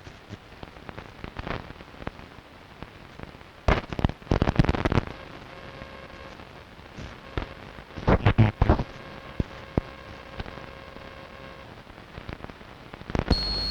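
Long-wave radio reception: steady hiss of static broken by irregular loud crackling bursts of interference, with faint steady tones in the background for several seconds. Near the end a loud, high steady tone with a low buzz under it comes in suddenly.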